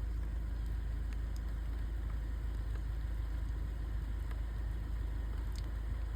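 Steady rain over a deep low rumble, with a few scattered sharp ticks of single drops landing.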